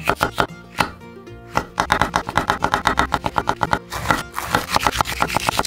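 Quick, steady knife cuts through bell peppers onto a wooden cutting board, about eight a second. They pause for a second or so twice, over light background music.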